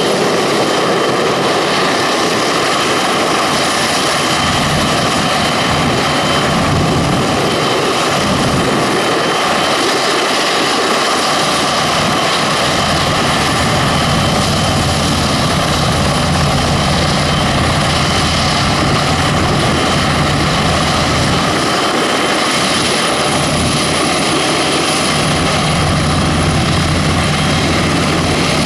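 An NH90 helicopter's twin Rolls-Royce Turbomeca RTM322 turboshaft engines run at ground idle with the main rotor turning, during the checks before taxi. The sound is a steady, loud turbine whine with a high-pitched tone over the rotor's low rumble.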